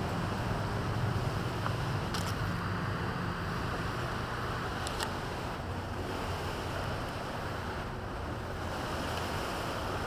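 Steady wind noise on the microphone with a low rumbling hum, and a couple of faint clicks.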